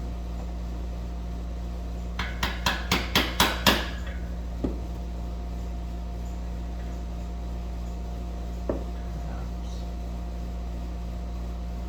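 A hammer striking metal, seven quick blows that come faster and louder, followed by two single knocks a few seconds apart.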